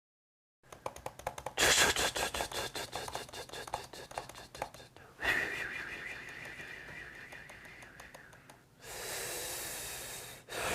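Rapid clicking like keyboard typing, then a high, wavering drawn-out tone, then a long breathy hiss like a sigh.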